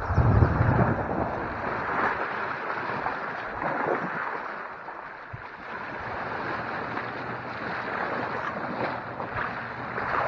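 Wind buffeting the microphone, with small waves lapping and splashing against the shore rock; a strong gust hits the microphone in the first second.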